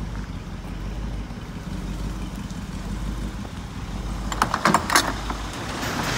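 Box truck's roll-up rear cargo door clattering, with a run of sharp metallic clicks and rattles about four seconds in, as it is unlatched and starts to roll up, over a steady low hum.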